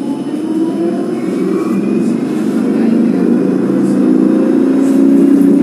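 Tram's electric traction drive heard from inside the car, a dense whine that climbs slowly in pitch and grows louder as the tram accelerates.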